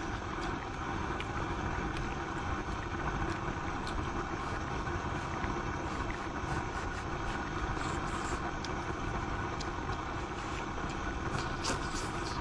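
A high-flame LPG camping burner running with a steady rushing noise under a pot of hotpot, with faint scattered ticks of spattering that grow more frequent near the end.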